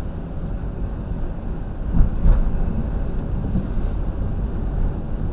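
Inside a van's cab while driving on a wet road: steady low engine and tyre rumble, with two brief knocks about two seconds in.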